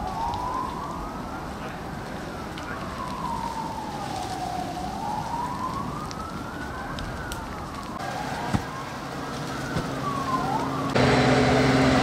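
An emergency vehicle's siren wails, slowly rising and falling every few seconds. A second siren with quicker sweeps joins about eight seconds in. About eleven seconds in, a louder truck engine running with a steady hum takes over.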